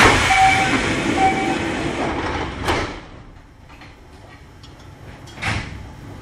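Passenger sliding doors of a Kintetsu 1021 series electric train working at a station stop: a sudden hiss lasting about two and a half seconds with two short beeps, ending in a thump. A second thump comes about five and a half seconds in.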